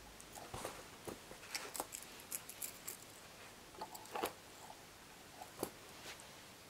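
Lace bobbins clicking and tapping together as new pairs are hung over pins and laid down on a bobbin lace pillow: a scatter of light, irregular clicks, the loudest about four seconds in and again a second and a half later.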